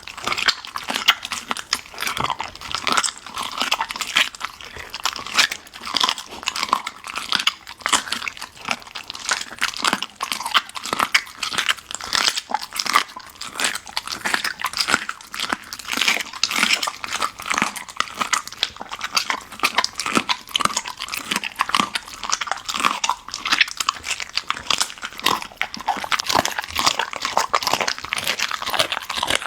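A golden retriever eating a raw meat and bone meal, with wet chewing and crunching going on without a break.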